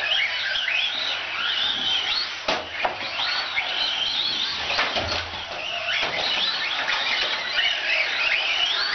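Small electric RC cars, among them a Team Associated SC18 1/18-scale short-course truck, racing: the high whine of their motors and gears rises and falls in pitch with the throttle. A few knocks about two and a half, three and five seconds in.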